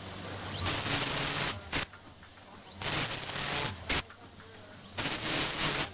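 Vertical form-fill-seal packaging machine cycling over a steady running hum: a hiss lasting about a second, then a sharp clack, three times at about two-second intervals.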